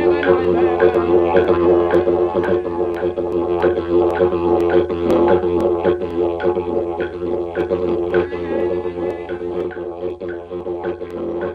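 Didgeridoo music: a steady drone with a regular beat of sharp taps, growing a little quieter near the end.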